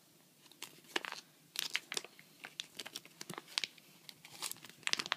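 A polymer (plastic) one-ringgit banknote crinkling and crackling in a person's hands as it is pulled and twisted in an attempt to tear it. The sharp crackles come irregularly from about half a second in. The tough plastic film does not give.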